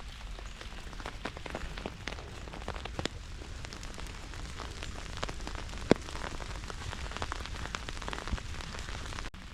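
Rain falling, with many separate drops tapping sharply on an umbrella over a steady hiss; one tap about six seconds in is louder than the rest.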